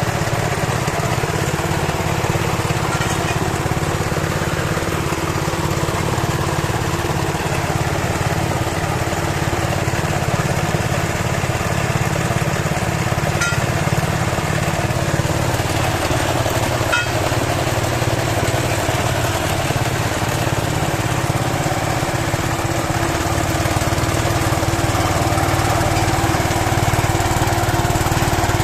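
Small water-pump engine running steadily under load, driving a well-drilling rig through a Suzuki Carry gearbox. It grows slightly louder near the end, and there are a couple of faint clicks partway through.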